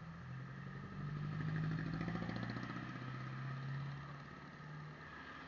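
A motorcycle engine running, swelling louder about a second in and easing off again after about four seconds.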